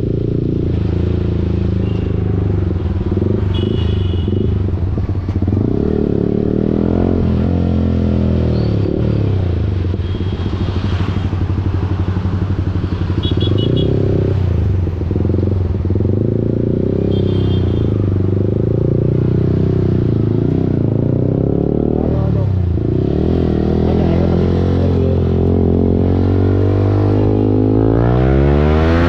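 Yamaha R15 V4's 155 cc single-cylinder engine through a full-system Akrapovic exhaust, running under changing throttle while riding: the revs drop and pick up again a few times and climb sharply near the end. A few short high beeps sound over it.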